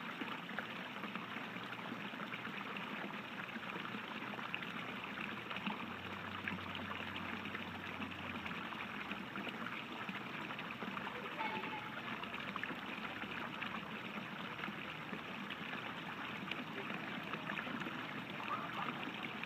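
Pool fountain jets arcing and splashing steadily back into the water, a continuous even sound of falling water.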